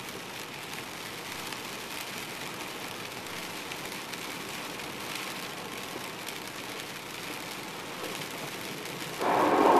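Heavy rain pelting a moving car, heard from inside, with steady hiss of tyres on a wet highway. Near the end a louder, lower rumble starts abruptly.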